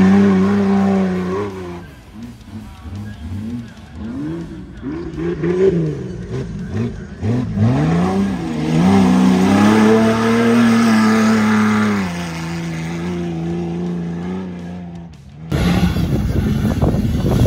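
Off-road race vehicle's engine revving hard on a steep dirt hill climb: quick rises and falls in pitch at first, then a few seconds held at high revs before easing back to a steadier lower note. Near the end it changes abruptly to a louder, rougher engine run.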